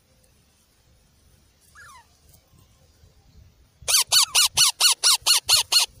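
Parakeet chick giving a quick run of about ten harsh squawks, roughly five a second, each dropping in pitch, about two-thirds of the way in. A single faint falling chirp comes before it.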